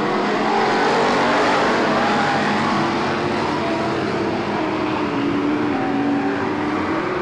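Engines of a pack of stock cars racing on a dirt oval: a loud, steady drone whose engine notes rise and fall as the cars pass.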